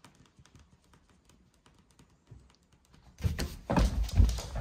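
A cat's faint, soft steps on a wooden floor, then, a little over three seconds in, a burst of loud thumps and scuffling as the cat pounces at a person's feet and the phone filming it jolts.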